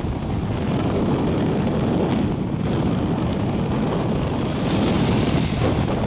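Strong wind buffeting the microphone over the rush of breaking surf on a rough sea, steady throughout.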